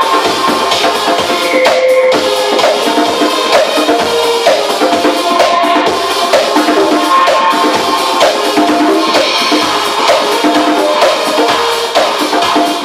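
Live hand percussion played over DJ music: dense, quick drum and percussion strikes over a steady melodic line, during a sound check.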